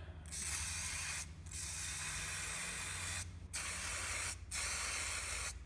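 Paslode degreaser sprayed from a can in four hissing bursts of about a second each, the second one longer, cleaning carbon and burnt oil from a gas fencing stapler's cylinder.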